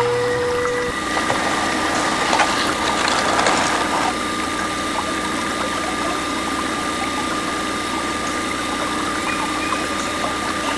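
Small DC motor of a home-made miniature drilling rig whirring steadily as it turns the drill rod into wet mud, with some rattling and splashing about two to four seconds in. A lower, steady motor hum cuts off about a second in, and the higher whir takes over.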